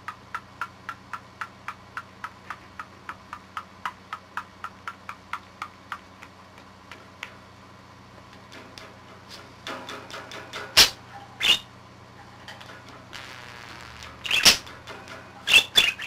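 Budgerigar sounds in a home recording: a run of soft, even clicks about four a second that stops about halfway, then after a pause a few loud, sharp chirps with some scuffling, over a steady low hum.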